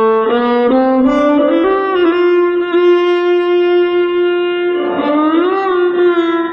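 Solo violin playing a slow Hindustani alaap in Raag Kafi: a few short bowed notes step upward, then a long held note, and about five seconds in the tone slides up and back down to the same note.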